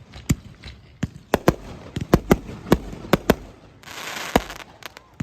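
Fireworks exploding in a rapid, irregular series of sharp bangs, about a dozen in all, with a brief burst of hissing crackle a little before the fourth second.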